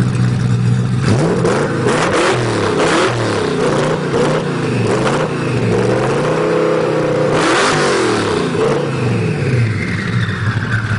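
1500+ hp Ford GT's V8 idling, then revved up and down over and over in quick blips for several seconds, with sharp crackling bursts from the exhaust during the revs, before settling back to idle near the end.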